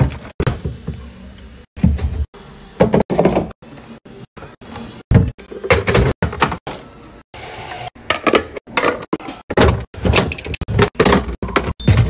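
Clear plastic fridge organizer bins and food containers being slid and set down on refrigerator shelves: an irregular run of knocks, thunks and plastic clatter that cuts in and out abruptly.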